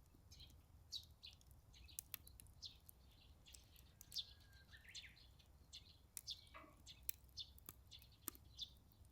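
Faint small-bird chirps, short falling notes repeated throughout, with a few sharp pops and crackles from wood burning in a Solo Stove Ranger fire pit over a low steady rumble.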